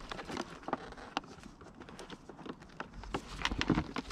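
Packaging of a new heated-grip kit being opened by hand: scattered small clicks and light rustling and crinkling.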